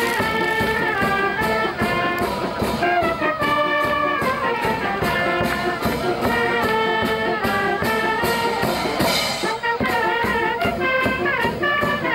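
A brass band plays a lively tune, trumpets carrying the melody over a steady beat of about three to four strokes a second.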